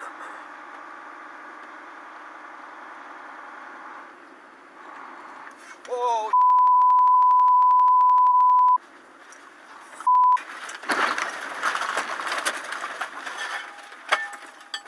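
A loud, steady, high-pitched censor bleep lasts about two and a half seconds, cut in over a brief voice-like cry, then a second short bleep a second later. Steady cab noise runs underneath, and a louder rush of noise fills the last few seconds.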